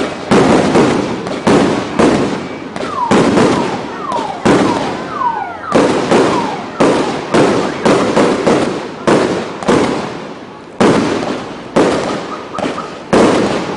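Fireworks display: aerial shells bursting one after another, about every half second to second, each bang dying away before the next. A few short falling whistles sound around the middle.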